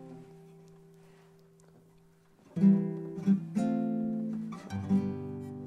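Nylon-string classical guitar strummed: a chord rings and fades away over the first two seconds or so, then fresh chords are strummed from about two and a half seconds in, as the introduction to a song.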